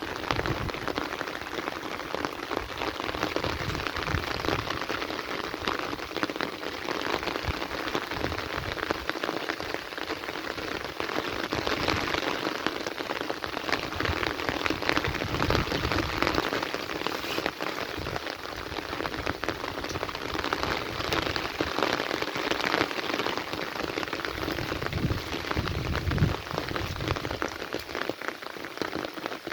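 Heavy rain falling steadily: a dense, even hiss of countless drops striking surfaces.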